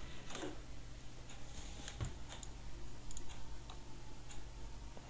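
A few scattered light clicks and small handling noises over a steady low electrical hum.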